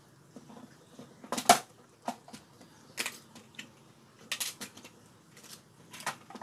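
Irregular clicks and knocks of objects being handled on a table, the loudest about one and a half seconds in.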